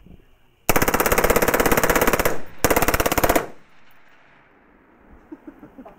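Spikes Tactical ST-15 short-barrelled rifle with its integrated suppressor firing full auto at a fast rate: a long burst of about a second and a half, a brief pause, then a shorter burst that runs the 60-round magazine dry. Echo trails off after the last shot.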